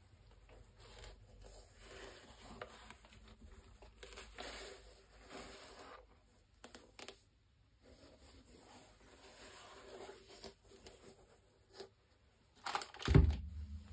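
Gloved hands handling a pair of Nike LeBron 20 sneakers: soft, irregular rubbing and rustling of cotton gloves against the knit uppers and rubber soles. Near the end a louder thump as the shoes are set down on the table.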